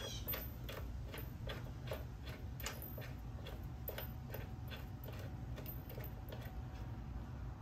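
Ratchet wrench clicking steadily, about three to four clicks a second, as a bolt is run in by hand. The clicking stops near the end.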